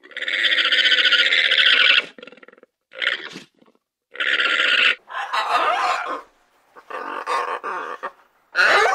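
Llama calls: a long, rough, buzzy cry lasting about two seconds, then two shorter cries. In the second half, a run of harsh macaw squawks.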